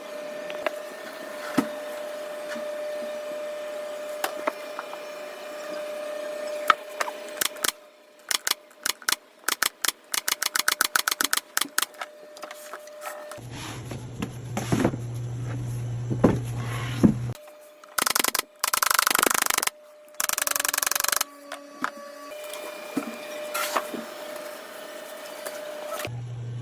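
Woodworking sounds: scattered knocks, then a quick run of taps at about five a second, then three loud bursts of a power tool, each about a second long.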